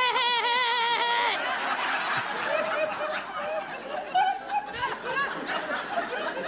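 Audience laughing and chuckling. It opens with a high, wavering pitched sound held for about a second and a half.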